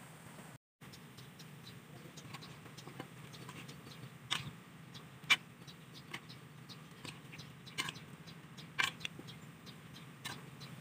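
Adobo sauce with chicken feet bubbling in a metal pan, with many small crackling pops over a steady low hum. A spoon clinks against the pan several times, sharpest about five seconds in.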